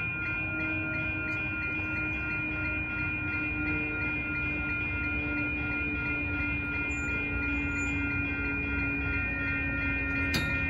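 Grade-crossing warning bell ringing steadily, about three strikes a second, as a Sacramento Regional Transit light-rail train approaches with a low rumble that slowly builds. A short sharp knock comes near the end.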